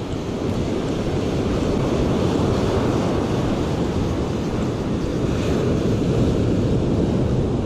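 Ocean surf washing onto a sandy beach, a steady rush, with wind on the microphone.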